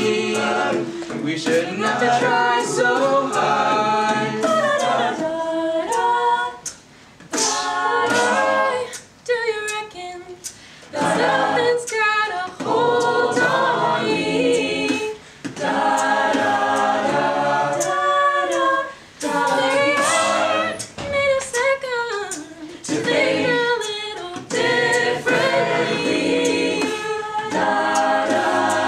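Mixed-voice a cappella group singing a pop song: layered sung harmonies with a vocal percussionist beatboxing the beat into a microphone. The sound drops away briefly a few times between phrases.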